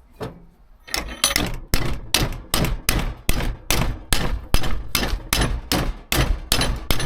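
Steady, rapid hammer blows on sheet steel clamped in a vise, about three a second, starting about a second in: folding a crease into a fabricated steel repair panel.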